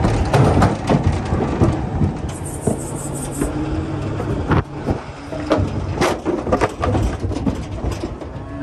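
Cattle clattering and knocking against the floor and sides of a livestock trailer at a loading chute, irregular bangs over a steady truck engine idle.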